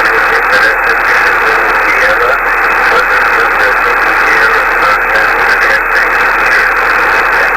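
Shortwave ham-radio receiver on single sideband between transmissions, putting out a steady hiss of band noise with no highs above it.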